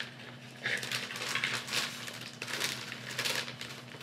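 Plastic zip-top bag rustling and crinkling in a series of short bursts as thick donut batter is spooned into it with a utensil.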